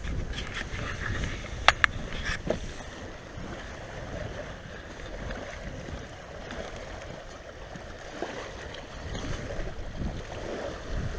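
Small lake waves lapping and splashing on a rocky, gravelly shore, with wind rumbling on the microphone. A couple of sharp clicks come a little under two seconds in.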